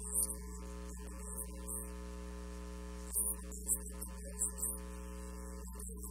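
Steady electrical mains hum with a buzz of evenly spaced overtones, broken by short, faint high hisses several times: once about a quarter second in, then a cluster from about three seconds in.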